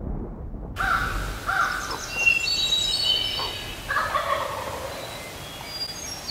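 A wild turkey gobbler gobbling repeatedly, the first gobbles about a second in and another about four seconds in, with songbirds singing high between them.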